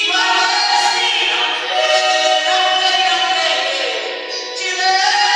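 Two women singing a gospel song together into handheld microphones, holding long notes.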